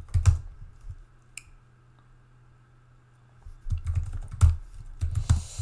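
Typing on a computer keyboard: a few quick keystrokes, a pause of about three seconds, then another run of keystrokes near the end.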